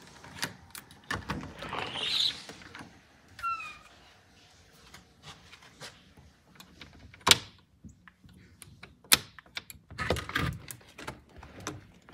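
Door hardware worked by hand: a round knob turned and a door opened, then the brass lever handle and latch of a storm door clicking. Sharp clicks and knocks throughout, the loudest about seven and nine seconds in, with a brief squeak about three and a half seconds in.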